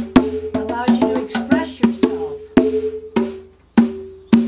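A pair of conga drums played by hand: open, ringing strikes at a low and a higher pitch in an uneven rhythm, with a brief lull a little past three seconds before the strikes resume.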